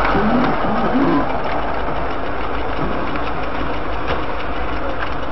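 A car engine idling steadily, heard from inside the stationary car's cabin through a dashcam's microphone.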